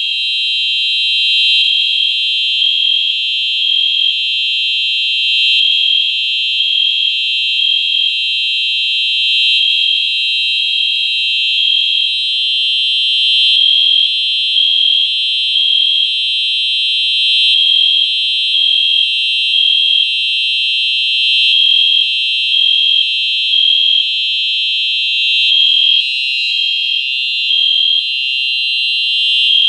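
Fire alarm horn of a Simplex 4903-9241 horn/strobe sounding loud and high-pitched, with a pattern that repeats about every four seconds. The system is in alarm after its manual pull station was pulled.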